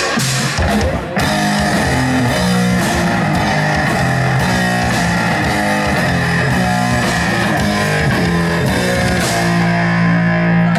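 Rock band playing live: a heavy electric guitar and bass guitar riff kicks in about a second in, after a few sharp hits.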